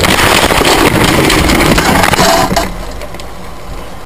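Car collision heard from inside the dashcam car: loud crunching, scraping and clattering of metal, plastic and broken debris as the cars grind together, dropping to quieter noise about two and a half seconds in.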